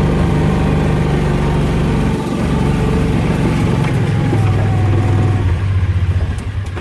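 A motor vehicle's engine running steadily and loudly. Its note dips about two seconds in and settles to a lower, steady hum in the second half.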